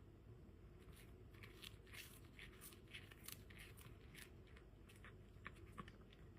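Near silence, with faint, irregular small clicks and crackles from about a second in until near the end.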